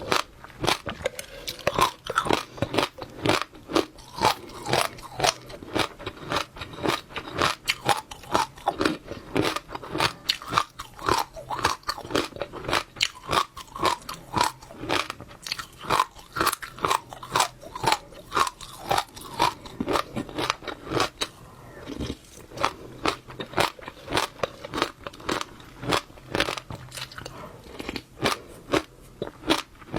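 Close-miked chewing of wet passionfruit seeds: the seeds crack and pop in a fast, unbroken run of sharp crunches, several a second.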